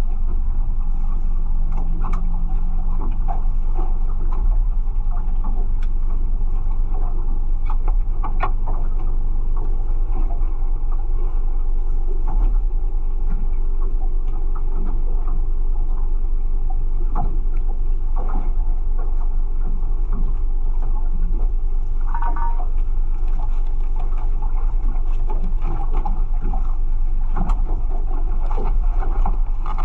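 Steady low rumble aboard a small fishing boat, with a faint steady engine hum in roughly the first third and scattered knocks and clatter of gear being handled on deck.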